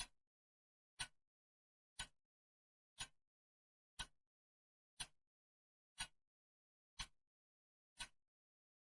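Clock ticking evenly once a second, each tick a single short sharp click with silence between.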